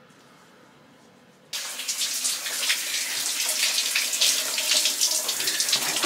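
A shower running, its spray hissing and splashing steadily; it comes in suddenly about a second and a half in, after faint room tone.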